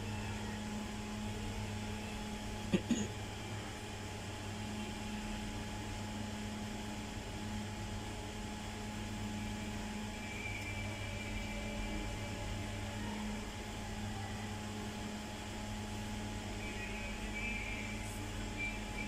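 Steady low electrical hum with a fan-like whir, and one short knock about three seconds in.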